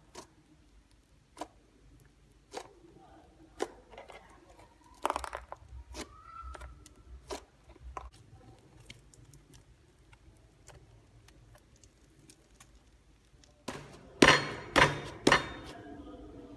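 Hand-wash fluffy slime being squeezed and poked, giving sharp clicks and pops about once a second, with a louder run of snaps near the end.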